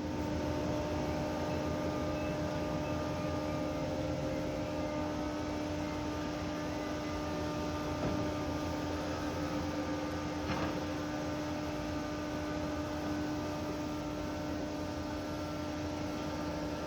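Steady mechanical hum with a constant low tone, and two faint knocks about eight and ten and a half seconds in.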